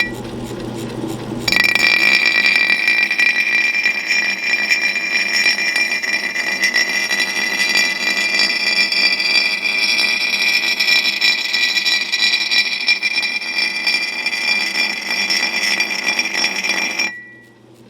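Steel axe bit held against a turning wet grindstone for rough sharpening: a loud steady grinding scrape with a high whine, starting about a second and a half in and stopping just before the end. The grinder's motor hums before the grinding starts.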